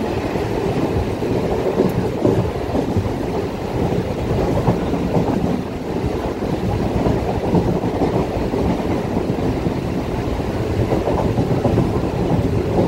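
Suburban EMU electric train running at speed, a steady rumble of wheels on rails heard through an open doorway.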